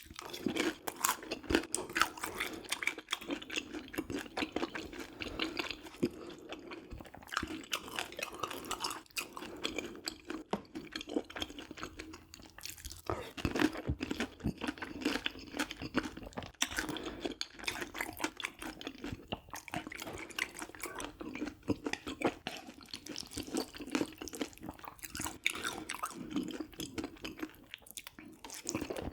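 Close-miked eating: steady chewing with wet mouth smacks and crunches.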